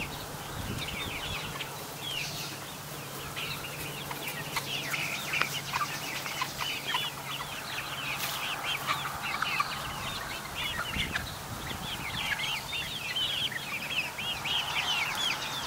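A flock of young chickens clucking and peeping, with many short high calls overlapping continuously.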